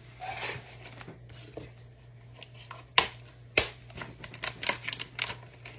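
Trading cards being handled and flipped through, rustling faintly, with two sharp clicks about three seconds in and a run of quicker ticks near the end.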